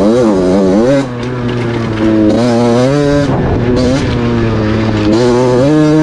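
50cc KTM motorcycle engine with a trophy-style exhaust running hard, its pitch climbing and then dropping sharply several times, as at gear changes or throttle lifts.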